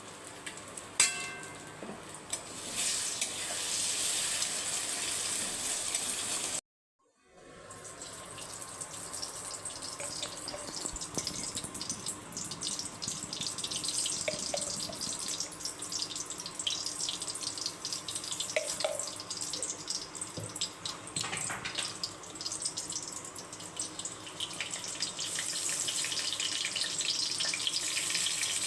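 Food sizzling in a hot pan, a steady crackling hiss, with a short metallic clink about a second in and a sudden drop to silence for under a second about seven seconds in.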